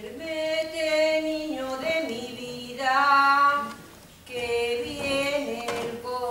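A woman singing a Spanish folk lullaby (nana) unaccompanied, in long held notes that slide between pitches, with a breath pause about four seconds in.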